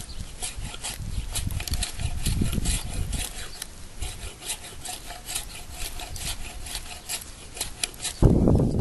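Fiskars X15 axe blade shaving curls down a wooden stick, a run of quick scraping strokes about three a second, as feather sticks are carved for a one-stick fire. Near the end it cuts off abruptly into a louder low rushing rumble.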